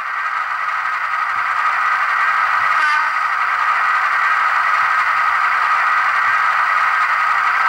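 Digital sound decoder in a Bachmann Class 55 Deltic model playing its Napier Deltic diesel engine sound while the model stands still, heard through its small speaker as a thin, steady engine noise. The sound swells slightly over the first couple of seconds, and a faint short tone comes about three seconds in.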